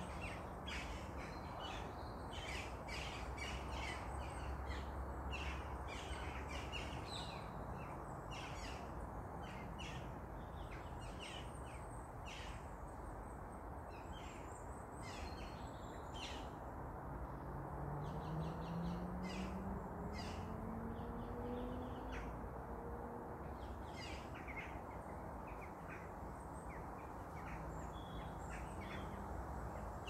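Birds chirping and calling in a steady stream of short calls over a constant low background rumble. Around the middle a faint low drone slowly rises in pitch and fades.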